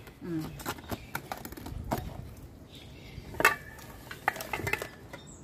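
Tableware clinking during a meal: scattered light clicks and knocks of spoons against bowls and pots, with a sharper clink about three and a half seconds in.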